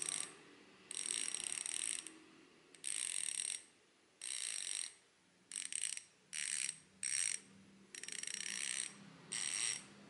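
Six-pawl freehub of a Nautilus Click R Boost 148 mm rear hub clicking as the freehub body is spun by hand, in about ten short bursts. The clicks run close together into a dense, cricket-like buzz.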